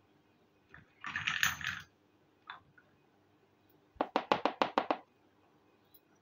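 A miniature terracotta pot set down on a hard surface, clattering as it rocks to rest: a rapid run of about eight clinks over a second. Earlier, about a second in, there is a brief scraping rustle.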